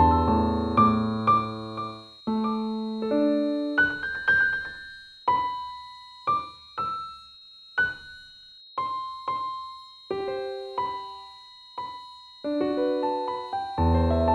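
Slow piano music: chords over a low bass at first, thinning to single notes that ring out and fade, then fuller chords with bass again near the end. A steady faint high tone runs beneath.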